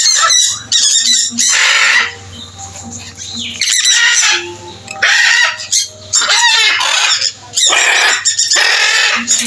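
Birds squawking loudly in harsh calls, about five of them, each under a second long.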